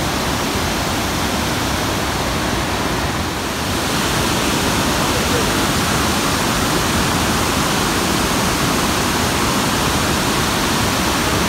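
Water rushing over the crest of Montmorency Falls, heard from just above: a loud, steady roar of falling water that grows louder and brighter about four seconds in.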